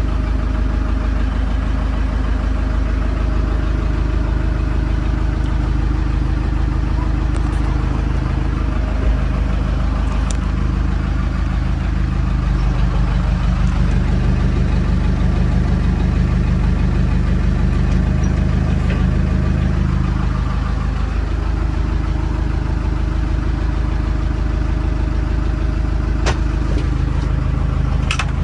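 Backhoe loader's diesel engine running steadily; for several seconds in the middle it picks up and runs harder, then settles back to its earlier speed.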